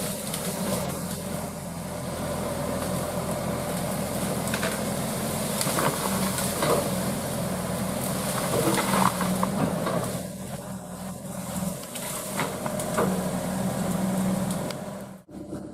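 Excavator's diesel engine running steadily, with scattered cracks and knocks from the work. Near the end the sound drops out briefly and a louder engine sound starts.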